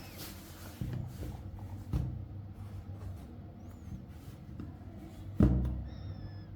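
A few knocks and bumps over a steady low hum, the loudest thump about five and a half seconds in, with faint high chirps twice.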